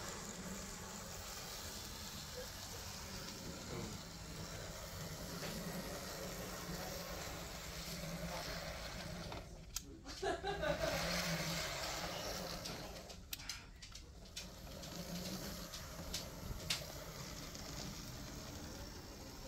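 Faint, steady running hum of a Z scale model diesel locomotive's small electric motor and wheels on track, with a couple of sharp handling clicks near the end.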